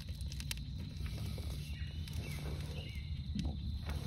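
Quiet outdoor ambience with a steady low rumble, a few faint bird chirps around the middle and a couple of soft clicks.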